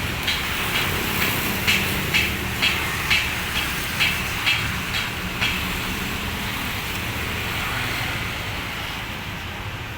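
A heavy engine running with a steady low rumble, with a regular clicking about twice a second that stops about halfway through.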